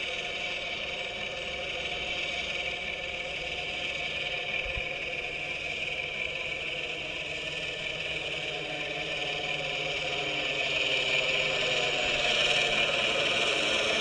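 Quadcopter in flight: its propellers whine, mixed with a simulated helicopter engine sound played by its onboard MrRCSound V4.1 sound system through transducers on a foam resonator. The sound is steady and grows louder about ten seconds in.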